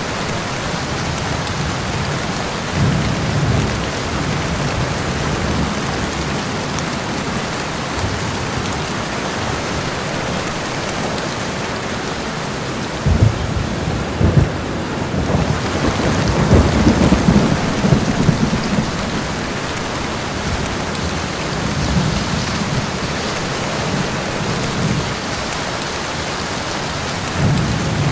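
Rainstorm: steady rain, with thunder. There are short low rumbles now and then, and about halfway through two sharp claps are followed by several seconds of rolling thunder.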